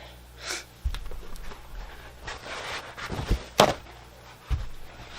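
Containers being handled on a tabletop while lime juice is measured out. There is a low thud about a second in and a rushing stretch after it. A sharp clunk, the loudest sound, comes about three and a half seconds in, and another thud follows near the end.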